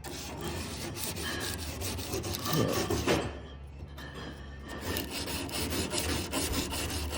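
Plumber's emery cloth rubbing along the edge of a Tesla Cybertruck's stainless-steel body panel, smoothing the rough edge in quick rasping strokes. The strokes pause briefly near the middle, then start again.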